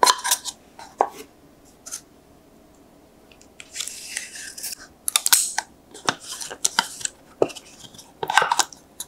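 A spoon scraping and tapping yogurt out of plastic cups into a glass mixing bowl. Scattered sharp clicks and taps, with a stretch of soft wet scraping about four seconds in.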